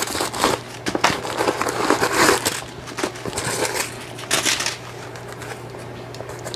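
White packing paper crinkling and rustling as it is pulled out of a new handbag and crumpled in the hand, in irregular bursts that die down about four and a half seconds in.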